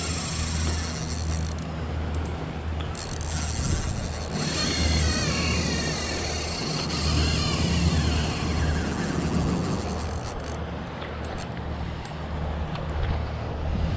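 Fishing reel working against a fish pulling on a bent rod, the drag and retrieve clicking in spurts; the angler takes the fish for a barracuda that grabbed his hooked snapper. A steady low hum runs underneath.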